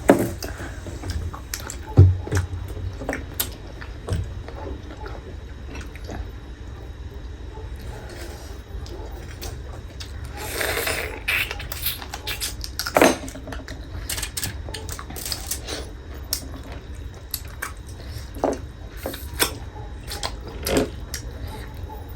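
Close-up eating sounds: hot soup being slurped and spoons and bowls clinking, with scattered small knocks.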